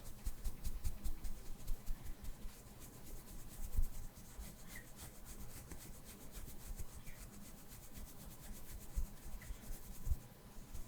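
Soft brush bristles stroked over a microphone, making a continuous crackly rustle with frequent low bumps. The loudest bump comes a little under four seconds in.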